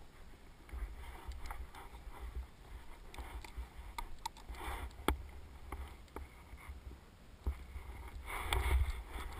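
Board or ski edges hissing and scraping over snow during a downhill run, in uneven swishes, with low wind buffeting on the camera's microphone. A single sharp click about five seconds in, and a longer, louder scrape near the end as the rider turns across the slope.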